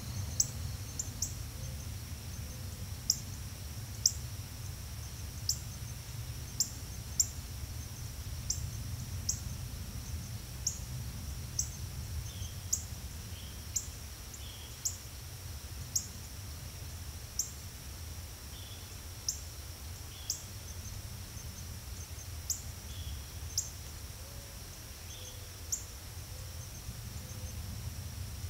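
Crickets and birds at dawn: a steady high insect drone, sharp high chirps about once a second, and a few faint falling bird calls over a low rumble.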